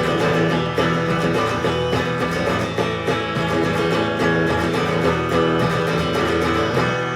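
Live country song's instrumental ending, led by a twangy Telecaster electric guitar with picked notes over steady low notes. The playing stops near the end, leaving the final chord ringing.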